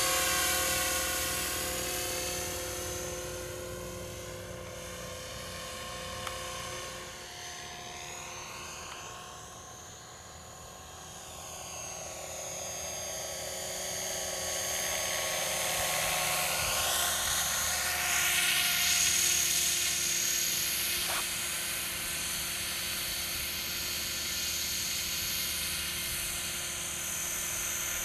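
Scale radio-controlled MD500D model helicopter in flight: a steady whine from its motor and spinning rotors. It fades as the helicopter moves away, quietest about ten seconds in, then grows louder again as it comes back close.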